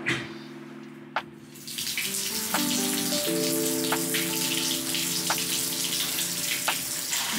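Water gushing from a wall-mounted waterfall bath spout into an empty bathtub as the bath is run. It starts about two seconds in, just after a click of the tap control, and then pours steadily.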